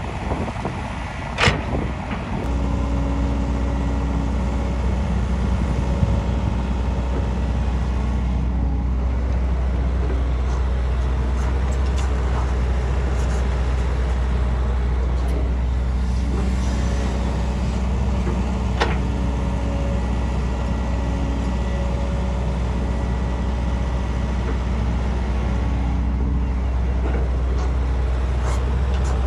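An engine running steadily with a deep, even drone that sets in suddenly about two seconds in, joined by a few sharp clicks.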